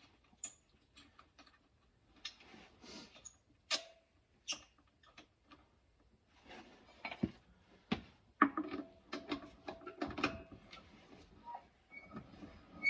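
Scattered light metallic clicks and clinks of tire-changing tools, the tire iron and scissor jack being worked, with a quicker run of clicks about two-thirds of the way through.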